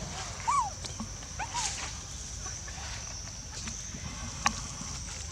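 A baby monkey giving two short, arched, high squeaks in quick succession, followed later by a single sharp click, over a steady thin high-pitched whine.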